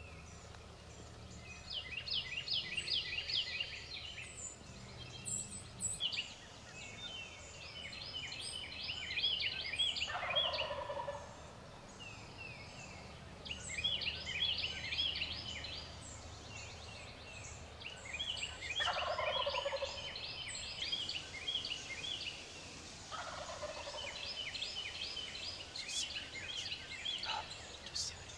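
Eastern wild turkey gobbler gobbling from the roost, three rattling gobbles about ten seconds in, near the middle and a few seconds later, with songbirds singing repeated trilling phrases throughout.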